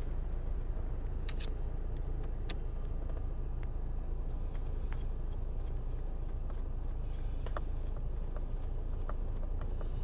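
Screws being driven by hand into plastic trim: scattered light clicks and ticks over a steady low rumble.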